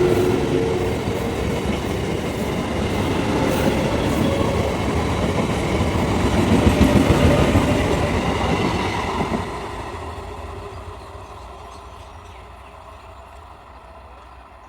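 Train running past at close range, its wheels clattering over the rail joints. The noise dies away from about ten seconds in as the train moves off.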